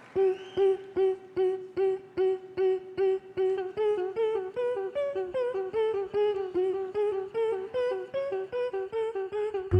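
Beatboxers' voices through handheld microphones: short pitched vocal notes, about two and a half a second, each with a sharp mouth click. The notes repeat on one pitch, then the tune steps upward from about halfway. A deep bass tone comes in right at the end.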